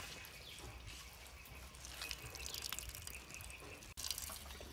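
Hands squeezing and rinsing shredded green papaya in a steel bowl of water: light dripping and splashing. A faint steady high tone runs underneath.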